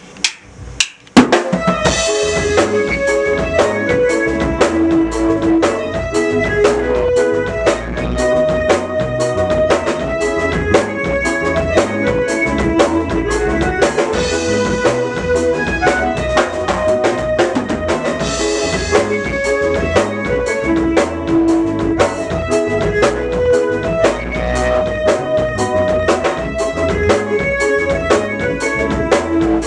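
Small band playing live: drum kit, electric bass guitar and electronic keyboard in a steady groove, no singing. A couple of sharp clicks come first, and the band comes in about a second in.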